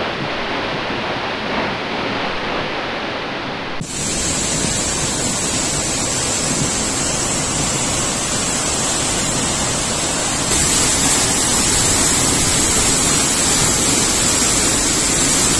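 Large waterfall heard close up: a loud, steady rush of falling water. The sound changes abruptly about four seconds in and again about ten seconds in, growing brighter each time.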